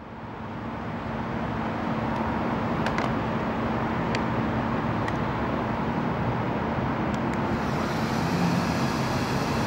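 Steady road traffic noise with a faint low hum, broken by a few light clicks; one, about four seconds in, comes as a Futaba radio transmitter is set down on the asphalt.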